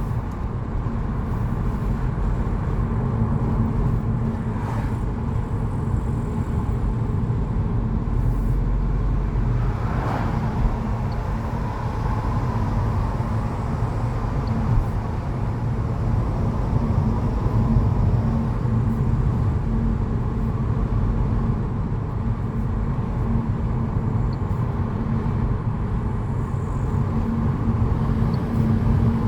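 A car driving along at steady speed: a continuous low rumble of engine and road noise with no changes in pace.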